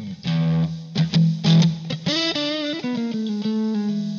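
Guitar music: a short intro of plucked notes, then a run of notes held over a steady low note that fades near the end.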